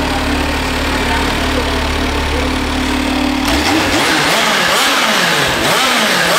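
Kawasaki Z H2's supercharged 998 cc inline-four on its stock exhaust, idling steadily. From about three and a half seconds in it is revved in a quick series of throttle blips, the pitch rising and falling with each.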